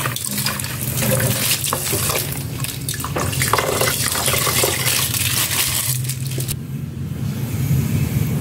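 Coconut milk pouring and being squeezed out of a plastic bag into a metal rice-cooker pot of rice, splashing, with the bag crinkling; the pouring thins out for the last couple of seconds.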